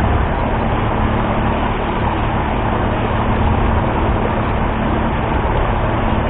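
Outboard motor of a small towing boat running steadily at speed, a constant low hum, mixed with water rushing and splashing along the hull of a kayak towed in its wake.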